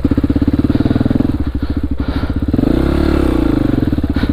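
2002 Honda XR400R dirt bike's air-cooled four-stroke single-cylinder engine running at low revs, with one rise and fall in revs about three seconds in.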